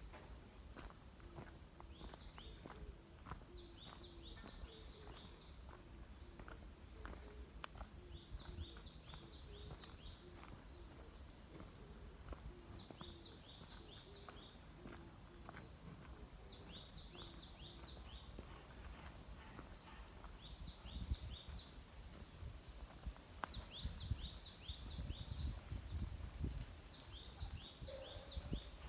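A steady high-pitched insect chorus of crickets or cicadas, with footsteps on a forest trail ticking underneath and clusters of short bird chirps coming and going. The whole scene slowly grows fainter toward the end.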